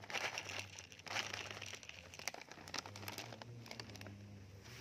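Plastic pouch of dry cat food crinkling as kibble is shaken out into a small metal dish, followed by a few scattered sharp ticks.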